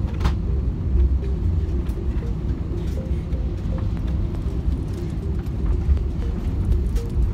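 Airliner cabin noise: a steady low rumble.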